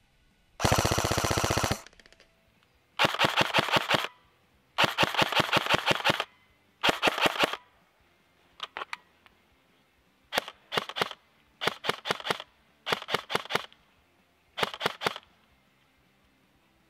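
EPeS M4-style airsoft electric gun (AEG) firing on full auto in about ten bursts of rapid shots, the first few lasting around a second and the later ones only a few shots each. A sorbo pad in the gearbox keeps it not very loud.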